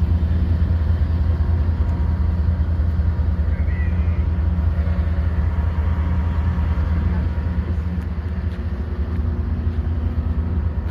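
A vehicle engine running steadily: a low, even hum with no change in speed.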